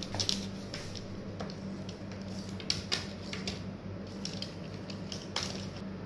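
Room tone: a steady low hum with a scattering of light clicks and clinks, the sharpest about three seconds and five and a half seconds in.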